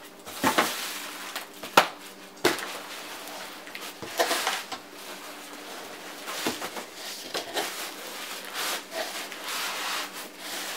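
Cardboard rubbing and scraping as a boxed battery backup is worked out of its cardboard shipping carton, with a few sharp knocks in the first few seconds.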